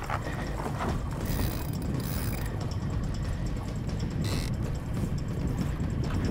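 Wind rumbling on an action camera's microphone, with three short hissing splashes of water as a hooked tarpon thrashes at the surface beside the boat.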